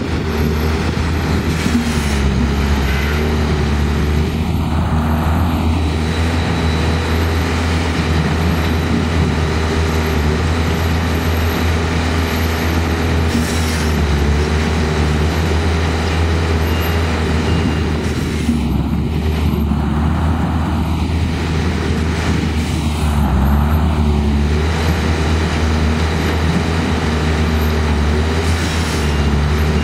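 Engine-driven machines running together in a steady, loud drone, with a broad hiss over a low hum that does not let up.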